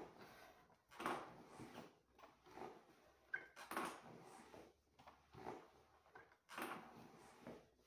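A person breathing hard through a set of sit-ups, a short effortful breath about once a second, faint.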